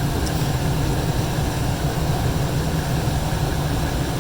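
Old gas furnace running: a steady low rumble of the lit burners and blower.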